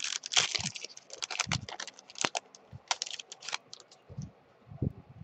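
Foil baseball-card pack wrapper being torn open and crinkled: a quick, dense run of crackles, then a few soft thumps as the cards are handled near the end.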